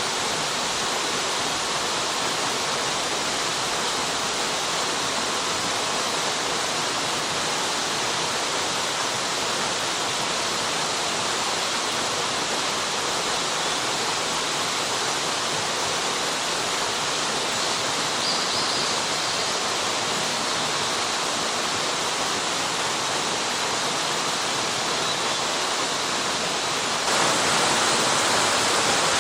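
Waterfall: water pouring steadily in an even rushing roar, which grows a step louder about 27 seconds in.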